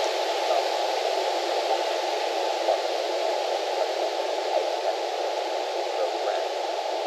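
Steady hiss like radio static, strongest in a narrow middle band and unchanging throughout.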